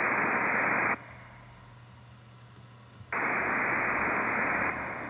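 Xfer Serum's noise oscillator, pitched down, played as two held notes: a band of hiss with the lows cut by an EQ and the highs gone above the pitch-down. Each note stops abruptly and leaves a fading hall-reverb tail.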